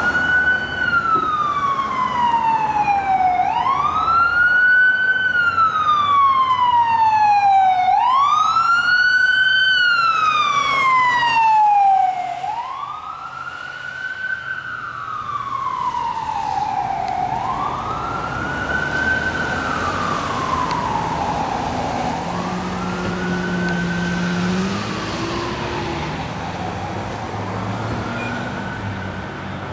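Ambulance siren on a slow wail, each cycle rising quickly and falling slowly, about every four and a half seconds. It grows fainter after about twelve seconds as the ambulance drives away.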